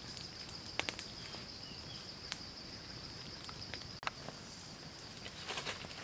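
Night insects, crickets or similar, keep up a steady high-pitched chorus. A few sharp crackles and clicks from a small wood campfire are scattered through it.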